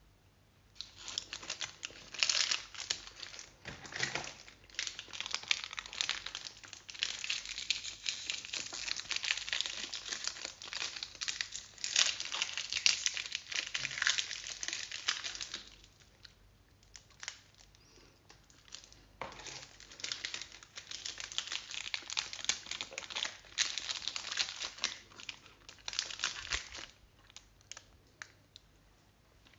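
Foil-lined plastic protein-bar wrappers crinkling as hands handle and fold them back. There are two long spells of dense crackling, stopping about 16 seconds in and starting again about three seconds later, then dying away near the end.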